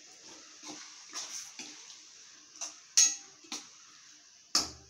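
Steel spoon scraping and knocking against a non-stick pan while stirring a thin, watery curry gravy, with the liquid sloshing: about half a dozen sharp clinks, the loudest about three seconds in and a duller knock near the end.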